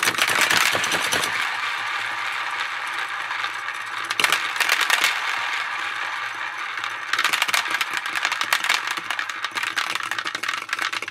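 Shelcore Teddy Go Round plastic popper toy spinning after its plunger is pushed: small plastic balls rattle and clatter around inside the clear plastic dome. The rattling gets louder at the start, about four seconds in and again about seven seconds in.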